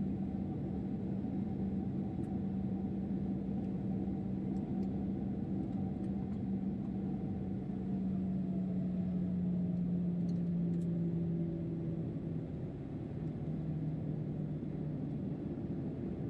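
Cabin noise inside a Boeing 737-800 in flight: the steady drone of its CFM56 jet engines with a low hum over a rushing air noise. The hum sinks a little in pitch about halfway through.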